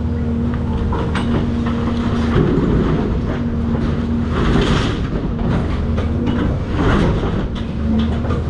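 Cat 336 excavator's diesel engine running at a steady pitch while demolition debris crunches and clatters, with louder stretches of crunching about two and a half, four and a half and seven seconds in, and scattered sharp knocks.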